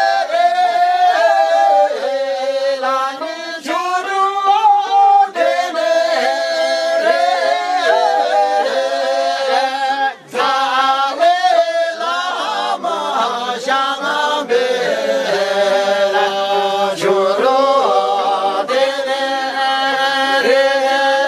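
Unaccompanied choir singing, several voices in harmony, with a brief pause about ten seconds in.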